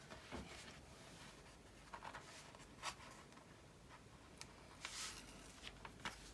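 Near silence with a few faint, brief rustles and crinkles of the plastic protective film being handled and folded back over a diamond painting canvas's adhesive.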